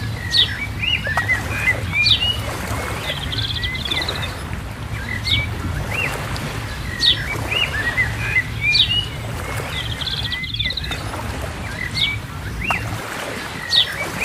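Birds chirping and calling, with short sweeping notes and a couple of brief trills, over a steady low hum that drops away near the end.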